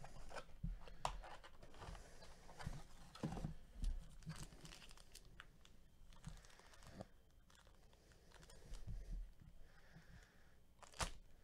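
Foil wrapper of a trading-card pack crinkling as it is handled and pulled out of its cardboard box, with scattered faint rustles and light taps.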